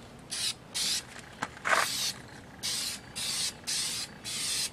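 Aerosol rattle can of orange spray paint hissing in a series of about eight short bursts, light strokes laying down a first dusting coat, with a brief click about a second and a half in.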